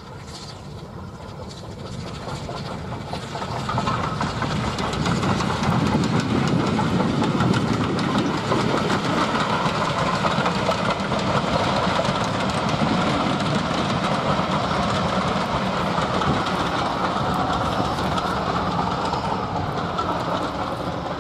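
A steam locomotive hauling a train of passenger coaches approaches and passes. The sound grows over the first few seconds, then holds as a steady rush of exhaust and wheel-on-rail noise while the coaches go by.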